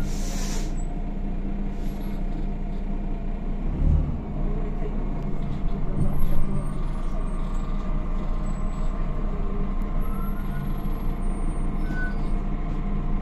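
Inside a Higer KLQ6129GQ2 diesel city bus on the move: the engine drones steadily throughout. A short air hiss comes right at the start, and there are thumps about four and six seconds in.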